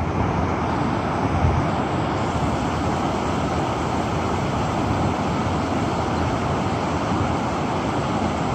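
Steady rushing of river rapids: an even wash of white-water noise that holds at one level throughout.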